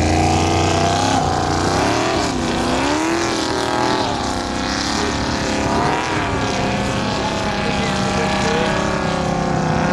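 Formula Offroad car's engine revving hard as it climbs a steep gravel slope, its pitch swinging up and down again and again as the wheels spin and bite.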